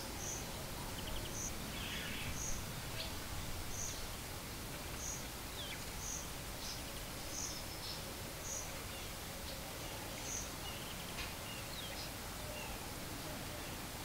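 Outdoor ambience of small birds calling over a steady background hiss: a short high-pitched peep repeats about once a second, with a few other brief chirps scattered between.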